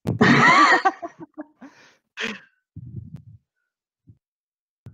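A loud burst of laughter over a video call, then shorter breathy chuckles that die away after about three seconds.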